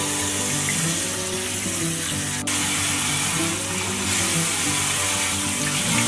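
Kitchen tap running hard into a water-filled pan of parboiled pork ribs in the sink, a steady splashing rush as the ribs are rinsed, with one sharp click a little over two seconds in.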